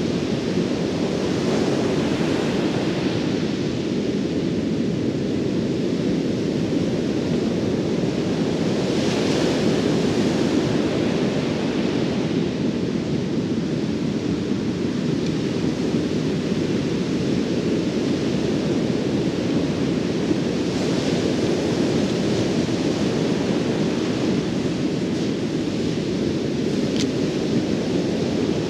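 Steady rush of ocean surf mixed with wind on the microphone, swelling brighter a few times as waves break, with a single short tick near the end.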